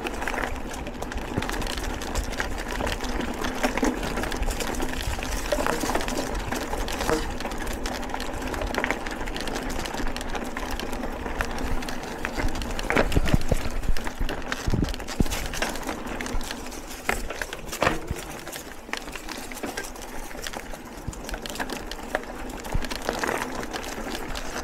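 Mountain bike riding on a dirt trail: tyres rolling over the ground with scattered knocks and rattles from the bike.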